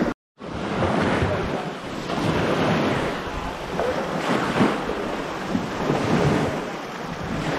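Wind buffeting the microphone as a steady rushing noise, with faint voices in the background. A brief dropout just after the start.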